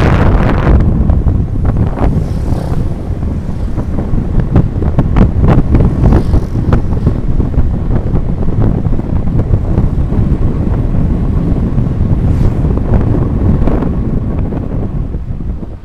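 Wind buffeting the microphone of a camera riding along in road traffic, with the low rumble of moving vehicles underneath and a faint steady tone near the start.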